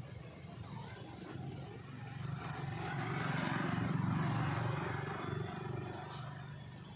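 A passing motor vehicle, its engine and road noise swelling to loudest about four seconds in and then fading away.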